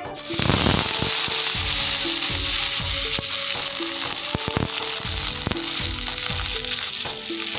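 Soaked, washed dried fish dropped whole into hot oil in a kadai, setting off a loud sizzle that starts suddenly just after the start and keeps going, with scattered pops and clicks. The fish are still wet from soaking, which is what makes the oil spit and hiss so hard.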